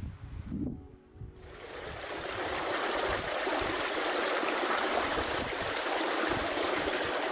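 Steady rush of running water that swells in over the first two seconds and then holds, after a brief low rumble at the start.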